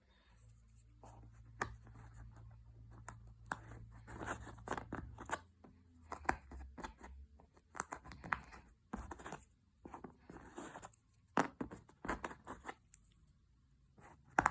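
Cardboard jigsaw puzzle pieces being handled and pressed into place: irregular clicks, taps and light scraping.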